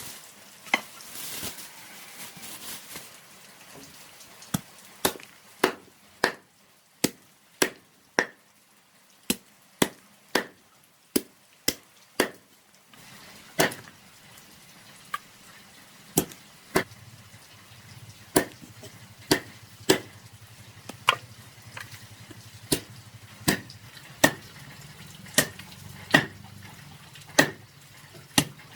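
A knife chopping on a cutting board in single, separate strokes, about one a second with a short pause near the middle.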